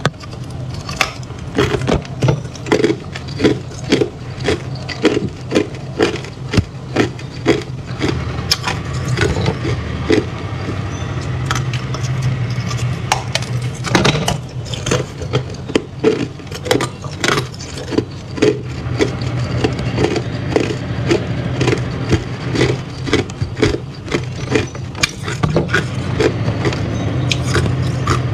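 Hard clear ice being bitten and chewed close to the microphone: a run of crisp crunches about two a second, with a louder crack about halfway through. A steady low hum runs underneath.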